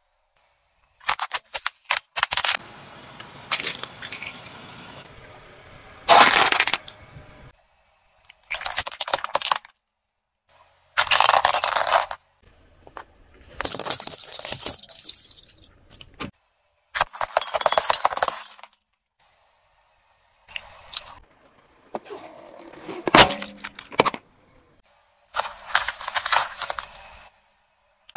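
A car tyre rolling over and crushing objects: cracking, crunching and breaking of plastic and squashing of soft things. It comes in about nine separate short bursts divided by silences, some with sharp loud cracks.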